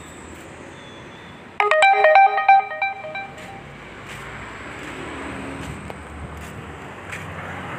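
A short electronic ringtone melody of quick pitched notes, starting about one and a half seconds in and lasting under two seconds.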